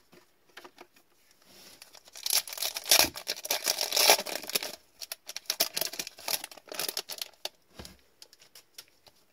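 A hockey card pack wrapper being torn open and crinkled by hand, a dense crackle that is loudest from about two seconds in to about five seconds. After that come lighter rustles and clicks as the cards are pulled out and handled.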